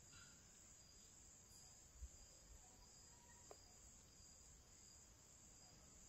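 Near silence, with a faint steady high-pitched hiss and two tiny ticks.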